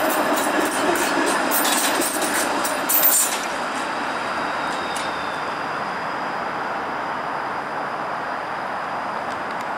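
Flexity Outlook streetcar running on the rails, its wheels clicking over the track in the first three seconds, then a steady rumble.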